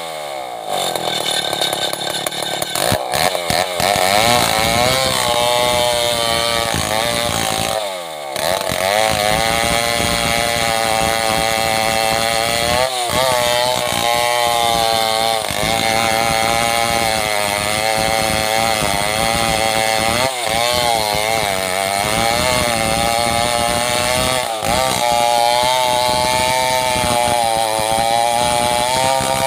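Two-stroke petrol chainsaw cutting into a coconut palm log. The engine is held at high revs, its pitch wavering under load. The revs drop at the very start and again about eight seconds in, then climb back, with a few short dips later.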